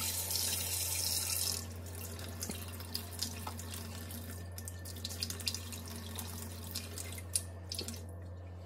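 Hot water being poured into a clear plastic container holding instant coffee and sugar: a steady splashing hiss that stops about a second and a half in. After it come a few faint ticks over a steady low hum.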